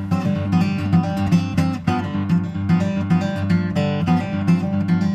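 Background music: acoustic guitar strummed and picked in a steady rhythm.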